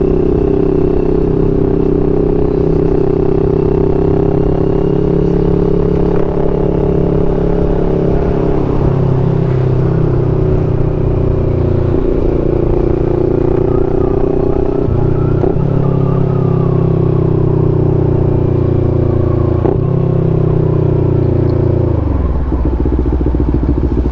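CFMoto 400NK parallel-twin motorcycle engine running under way at a steady pace, its note holding with small rises and dips, then falling near the end as the throttle closes.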